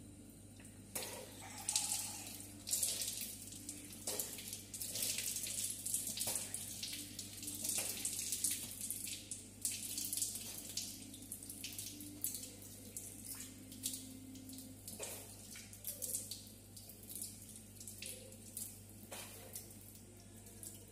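Water running from a low wall tap and splashing in irregular bursts onto hands, face and arms and the tiled floor below as they are washed under it.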